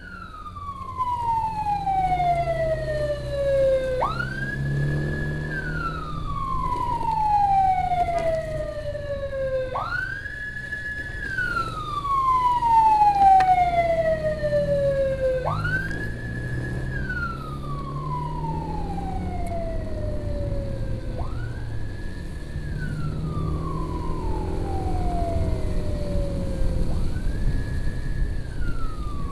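Emergency siren on a slow wail. Each cycle jumps up quickly, holds high for about a second, then falls slowly over about four seconds, repeating about every six seconds, five rises in all. A motorbike engine and road noise run low beneath it.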